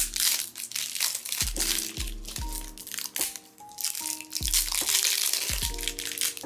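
Clear plastic wrap crinkling and crackling as it is pulled and peeled off a bundle of stickers by hand. Background music with a steady beat runs underneath.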